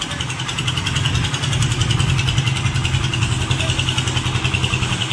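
An engine-driven machine running steadily with a fast, even pulsing beat, with a steady hiss above it.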